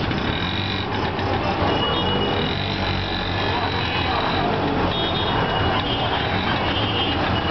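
CNG auto-rickshaw engines running steadily in close traffic, a constant low hum with road noise. Short high-pitched beeping tones come and go over it.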